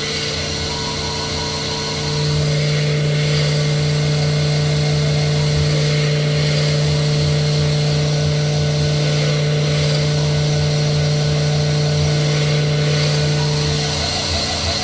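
Sunnen SV-10 honing machine running a manual-dwell cycle with diamond stones, dwelling at the bottom of a cylinder bore to open it up. Its steady hum steps up about two seconds in and drops back near the end, over a steady higher machine tone.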